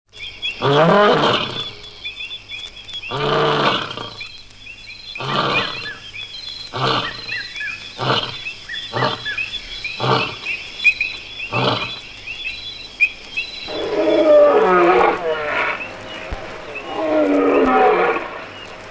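Lion roaring in a typical bout: a long, deep opening roar, then shorter grunting roars coming closer together, over steady high chirping in the background. From about fourteen seconds in come longer, wavering moaning calls. A faint low hum from the old 45 rpm record runs underneath.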